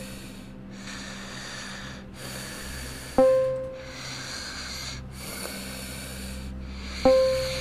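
Elevator floor chime dinging twice, about four seconds apart, each a single bell-like ding that fades, as the car passes a floor. Between the dings, slow heavy breathing in and out, about every second and a half.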